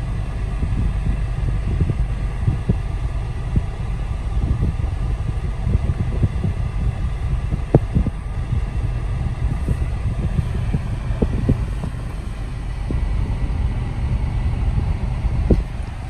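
Steady low rumble inside the cabin of a car waiting in traffic, with a few faint clicks and knocks.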